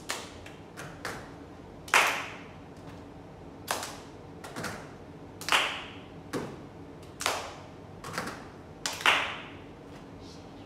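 Body percussion by a small group: hand claps and pats in a rhythm of about one stroke a second, with a louder clap every three or four beats.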